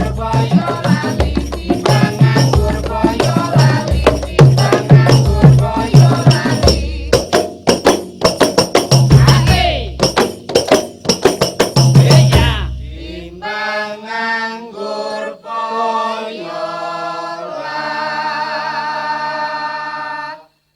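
Background music: a song with a steady heavy beat and percussion. About thirteen seconds in the beat drops out, leaving the melody, which ends on a long held note that stops abruptly.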